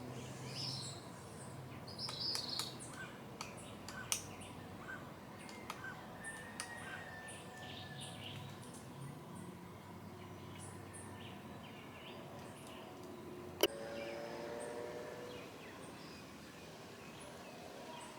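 Quiet outdoor ambience with scattered short, high chirps and calls from small animals. There is one sharp click about thirteen and a half seconds in.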